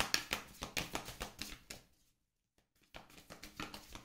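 Tarot cards being handled and shuffled: a quick, faint run of clicks and taps, broken by a short silent gap about two seconds in.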